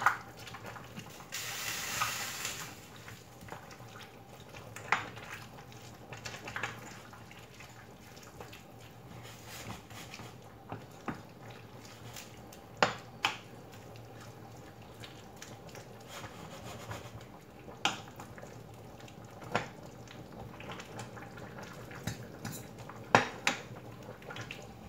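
Wooden spoon stirring vegetables in broth in a stainless steel pot, knocking against the pot's side now and then. A brief hiss comes about a second in.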